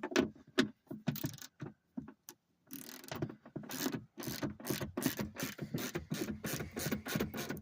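Long ratchet wrench clicking as it turns a 10 mm bolt behind the rear quarter panel trim: a few scattered clicks, a short pause, then a fast steady run of clicks.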